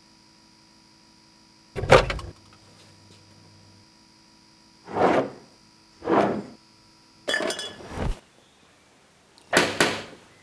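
Kitchen foley over a faint steady hum: a sharp thump about two seconds in as the fridge is opened, two soft shuffling noises, a drinks can cracked open with a click and hiss around eight seconds, then gulping as it is drunk near the end.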